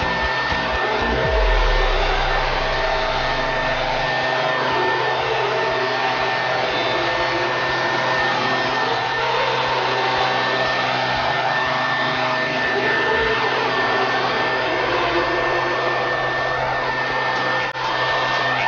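Leaf blower running steadily at full power, with a constant whine over the rush of air, as it blows clippings off the curb and sidewalk. It dips briefly near the end.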